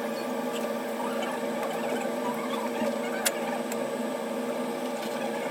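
Steady machine hum with a few small sharp clicks, the clearest about three seconds in.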